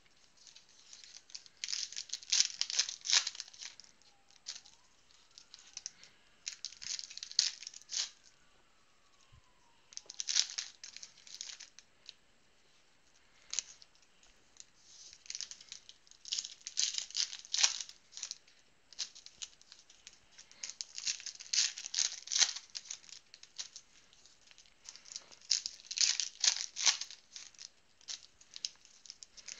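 Wrappers of 2015 Panini Prizm Draft Picks football card packs being torn open and crinkled, in about seven bursts of rustling with short pauses between.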